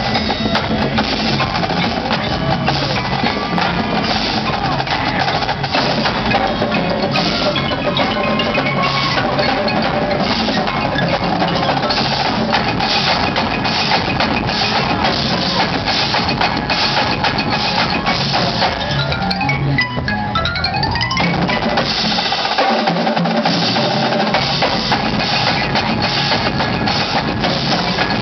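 Marching band playing a classic rock arrangement, with the drums keeping a steady beat and the front ensemble's mallet percussion (glockenspiel, marimba) standing out. About twenty seconds in, a quick rising run of notes sweeps upward.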